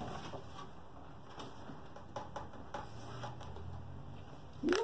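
Soft handling noises of a cardboard box being opened: a few light taps and scrapes as the lid is lifted. A short rising sound comes near the end.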